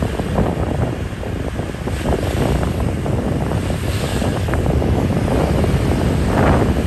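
Wind buffeting the microphone over the steady rumble of a vehicle riding along a street.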